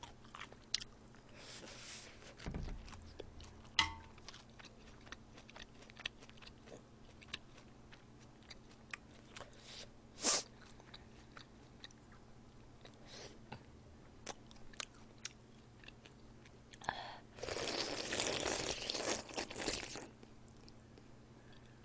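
Close-miked eating: crisp crunching and chewing of cold salad vegetables, with scattered clicks of chopsticks and a ladle against dishes. Near the end comes a few seconds of loud slurping as udon noodles are eaten from the ladle.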